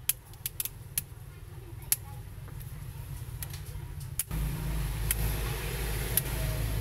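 Plastic clips of a phone's back cover snapping loose one by one as it is pried off the frame with the fingers, a handful of sharp clicks. Under them a low steady hum grows louder, stepping up suddenly about four seconds in.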